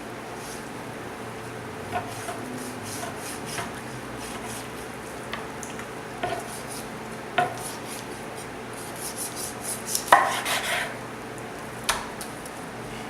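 A knife working against a cutting board while a chicken breast is cut off the bone: scattered sharp taps and scrapes, with a louder clatter of several knocks about ten seconds in.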